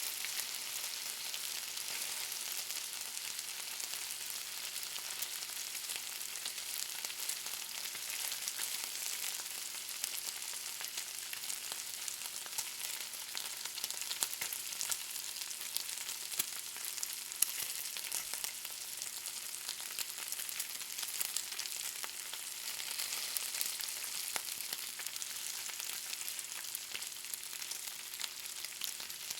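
Bacon sizzling as it fries: a steady high hiss with many small crackles and pops throughout.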